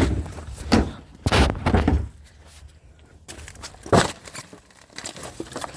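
Styrofoam packing being smashed: a series of hard knocks and crunches, with a longer crunching break about a second and a half in and a sharp knock about four seconds in.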